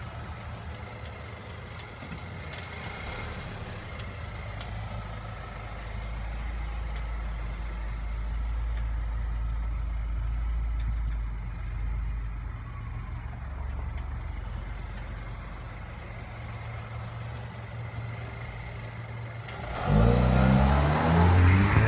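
Steady low vehicle engine rumble with sharp clicks every second or few. Near the end a louder sound with a wavering, bending pitch comes in.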